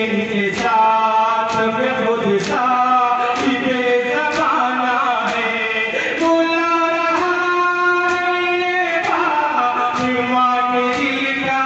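Men singing a noha, a Shia mourning lament, in long held notes. A crowd's chest-beating (matam) slaps fall in a steady rhythm about once a second.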